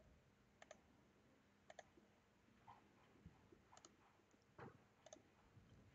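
Near silence with about four faint double clicks spread through it, the press-and-release of a computer mouse button.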